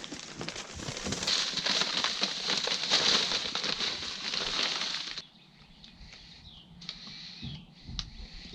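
Dense, rough scratching or scraping noise that stops abruptly about five seconds in, followed by fainter scattered taps and rustles.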